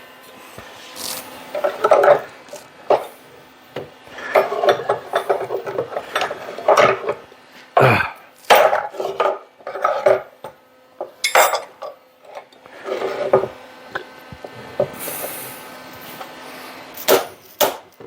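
Irregular knocks, clinks and scraping of hand tools against metal parts, from improvising to get a wheel off a Delta drill press spindle without a wheel puller.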